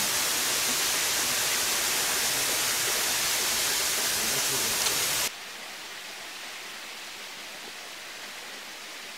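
Steady outdoor hiss of background noise, which drops suddenly to a quieter hiss about five seconds in.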